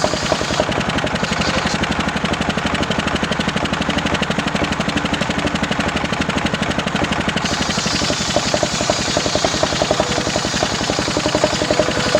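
Homemade engine-driven circular saw running steadily, with a fast, even engine pulse throughout and a change in tone from about one to seven seconds in.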